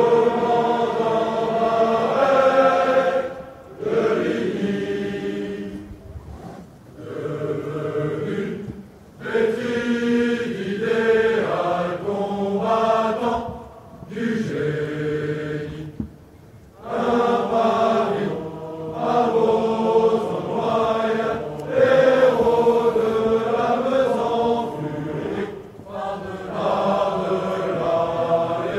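A large group of officer cadets singing an a cappella ode together, with no instruments. The song moves in phrases of a few seconds, each followed by a brief pause for breath.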